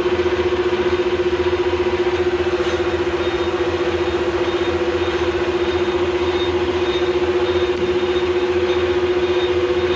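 Clausing Colchester 13-inch gearhead lathe running at 570 RPM with its lead screw and feed bar turning under power feed: a steady gear whine over a low motor hum.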